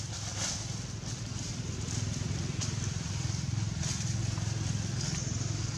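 A motor running steadily with a low rumble, with a few brief rustles of dry leaves.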